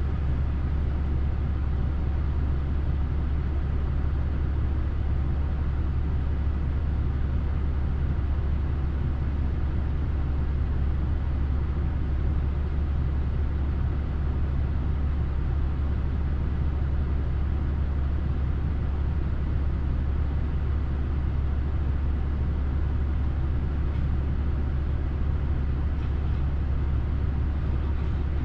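A vehicle engine idling with an even, unbroken low rumble.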